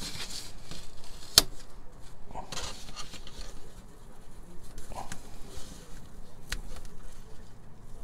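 Hands working duct tape and pleated air-filter material on a tabletop: rustling and crinkling in short spells, with a few sharp clicks, the loudest about a second and a half in.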